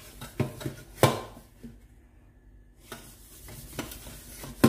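Metal teapot knocking and clinking against a stainless steel sink as it is handled and washed: a few sharp knocks, the loudest about a second in and another right at the end.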